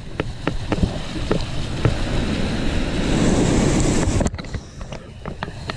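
Surf washing around a wading angler's legs, with wind on the microphone and scattered knocks. The rush of water builds to its loudest, then drops off abruptly about four seconds in.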